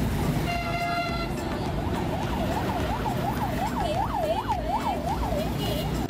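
Emergency vehicle siren wailing in a fast rise-and-fall, about two cycles a second, strongest around the middle of its run, over steady street traffic rumble. A vehicle horn sounds once, briefly, near the start.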